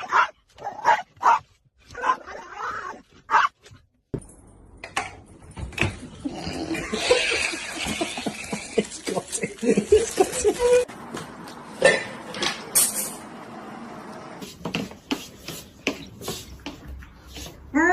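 A dog barking in short, separate barks for about the first four seconds. Then the sound cuts suddenly to a busier, noisier mix of scattered sounds.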